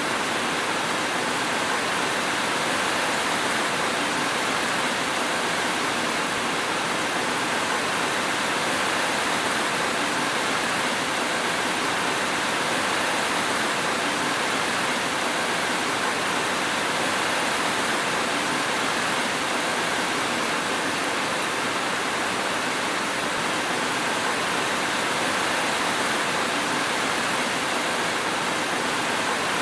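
Steady rain falling, an even hiss with no thunder and no single drops standing out.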